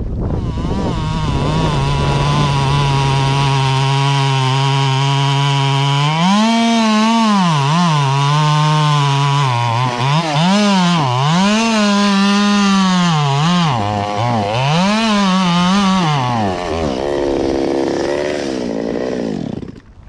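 Stihl 200T top-handle two-stroke chainsaw running loud: a steady note at first, then the engine speed swings up and down repeatedly as the throttle is worked, before it drops and the saw shuts off near the end.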